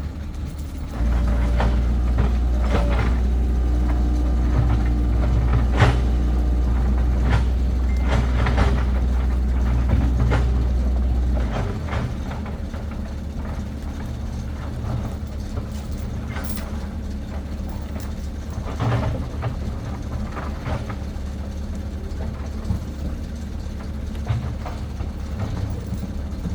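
Excavator engine running with a steady low drone, working harder and louder from about a second in until about twelve seconds, then settling back to a lower run. Scattered metallic knocks and clanks sound over it.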